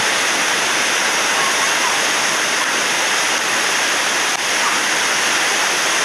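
Waterfall: a steady, loud rush of falling water with no let-up.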